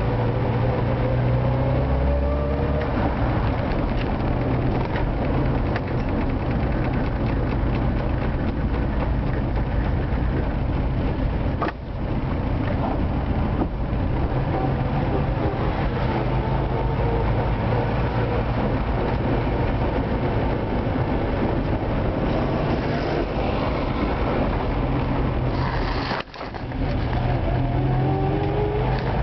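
Moskvich car's engine and road noise heard from inside the cabin while driving. The engine pitch rises in the opening seconds, drops briefly twice, about twelve seconds in and again near the end, like gear changes, and climbs again after the second drop.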